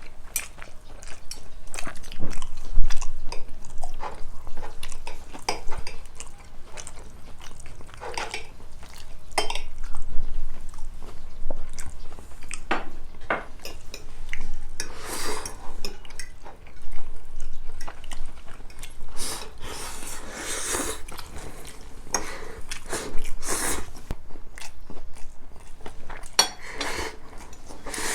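Someone chewing and biting into a crisp breaded fried pork cutlet, with crunches and the clink of utensils against a dish.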